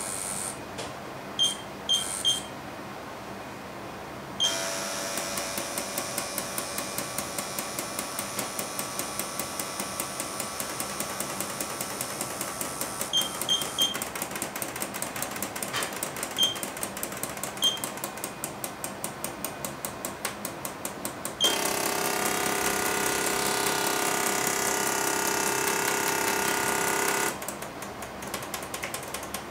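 Pneumatic robot arm working under a 7.5 kg load: its air control valves rattle rapidly with a hiss of air. From about 21 s to 27 s the valves give a louder steady buzz. Short high electronic beeps sound now and then.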